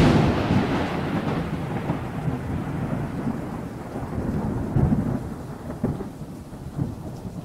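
A rolling thunder rumble with a rain-like hiss. It hits hardest at the start and slowly fades, with a few sharp crackles along the way.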